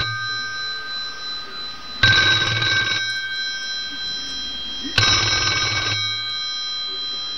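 Telephone ringing with a trilling ring: two rings of about a second each, three seconds apart.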